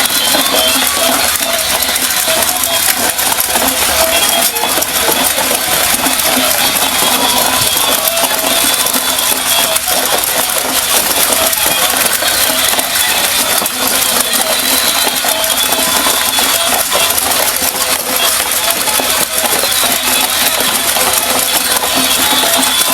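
Battery-powered walking toy horse: its small electric motor and plastic gears whirring steadily, with rapid clicking and rattling throughout.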